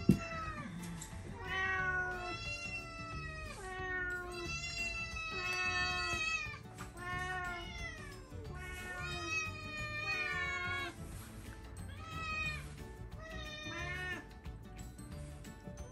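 Cats meowing over and over, about a dozen drawn-out meows that rise and fall in pitch, begging for food at the table. A sharp knock sounds right at the start.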